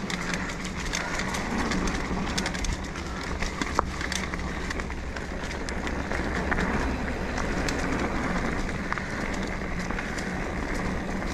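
Mountain bike rolling along a dirt singletrack: steady tyre and wind noise with many scattered clicks and rattles from the bike.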